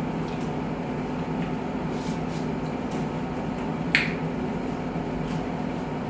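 Steady low room hum with a few faint sharp clicks, and one louder click about four seconds in.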